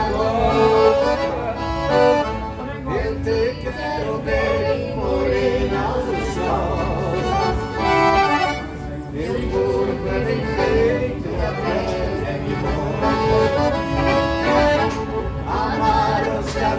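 Several accordions playing an instrumental gaúcho tune, melody over a steady bass accompaniment.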